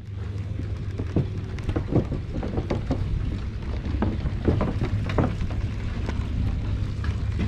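Footsteps on a wooden dock, irregular short knocks about once or twice a second, over a steady low rumble.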